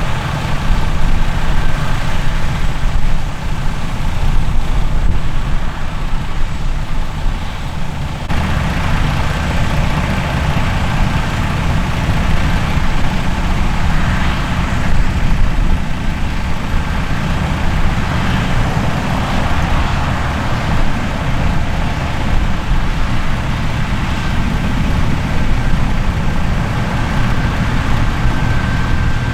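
Heavy diesel harvest machinery running steadily, a deep engine drone. The sound changes abruptly about eight seconds in.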